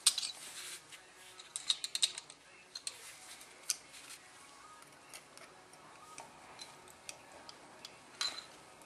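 Small metal parts of a single action revolver's action being handled and fitted into the frame: sharp clicks and clinks, a cluster at the start and another about two seconds in, then scattered single ticks and a short clatter near the end.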